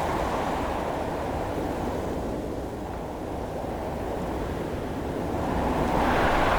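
Windstorm sound effect: strong wind blowing in a continuous rush, easing slightly mid-way and swelling again into a brighter gust near the end.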